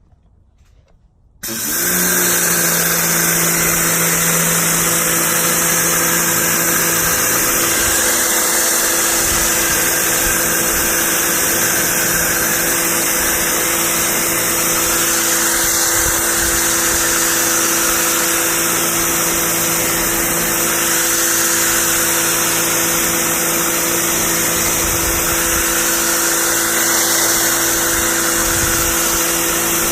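PAXCESS 1800-watt electric pressure washer switched on about a second and a half in. It spins up, then runs steadily with a motor hum under a loud hiss.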